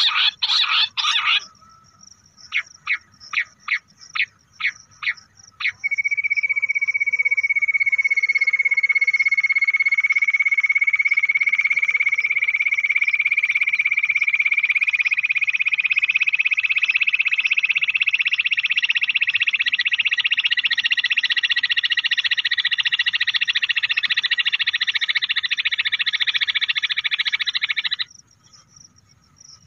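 A recording of bush quail calls played back as a hunting lure. A quick run of rapid notes gives way to several spaced notes. Then comes one long, unbroken rapid trill whose pitch rises slowly, and it stops suddenly about 28 seconds in.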